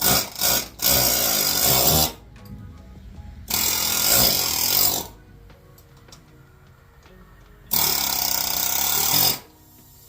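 Craftsman pneumatic air hammer firing in loud rattling bursts, used to knock the clutch fan off a 6.0 L GM V8. There are two quick blips at the start, then three longer runs of about a second to a second and a half, with pauses between. Faint background music plays in the gaps.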